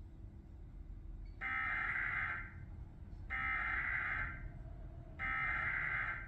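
Emergency Alert System SAME header: three harsh bursts of digital data tones, each about a second long and about a second apart, encoding the alert, here a Required Monthly Test.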